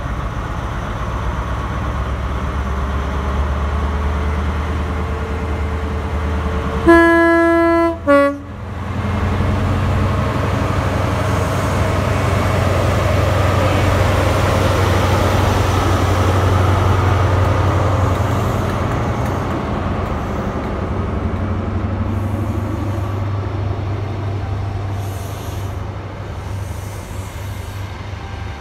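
InterCity 125 High Speed Train passing at speed behind its Class 43 diesel power car, with a steady engine drone. About seven seconds in the two-tone horn sounds: a longer high note, then a short lower note. This is followed by the swelling rumble of the coaches running past.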